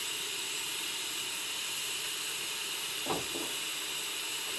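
Pressure cooker cooking beans, hissing steadily as steam vents under pressure.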